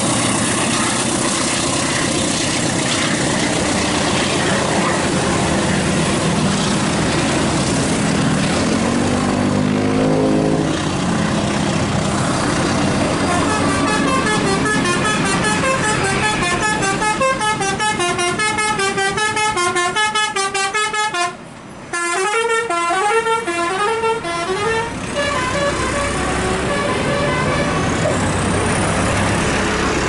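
Basuri telolet musical horns on coach buses play quick runs of stepped notes that rise and fall like a tune. They start about halfway through, go on for about ten seconds, and break off briefly near two-thirds of the way. Before them comes a steady rumble of heavy vehicle engine and road noise.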